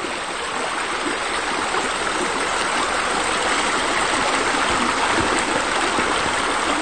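Steady rush of water pouring from wall spouts into a swimming pool, an even splashing flow that stays level throughout.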